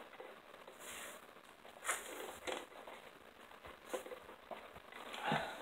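Eating sounds close to the microphone: chewing and biting into fried chicken, irregular crunches and smacks, with a few louder ones scattered through.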